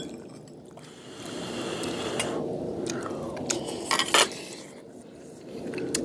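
Eating sounds: metal spoons clinking and scraping in stainless steel rice bowls, with wet mouth sounds. A few sharp clinks about four seconds in are the loudest.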